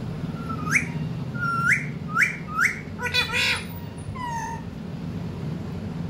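Young pet parakeets calling: four short whistled calls, each sweeping upward, in the first three seconds, then a harsher squawk and a short falling call.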